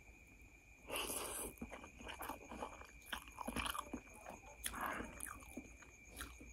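Close-miked eating of a forkful of noodles: a louder wet burst about a second in as the noodles go into the mouth, then chewing with small irregular smacks and clicks, and a second louder burst near five seconds.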